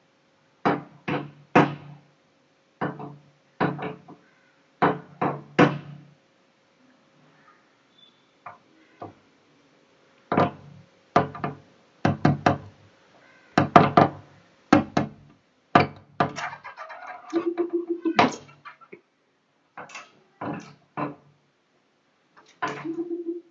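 A bird striking a glass window pane again and again: sharp knocks in irregular clusters, often two or three in quick succession, with a short lull partway through.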